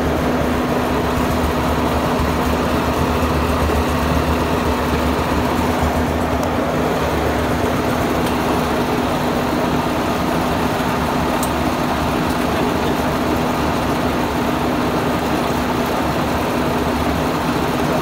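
Heavy diesel engine running steadily at a constant speed close by, with an even hum and low rumble throughout.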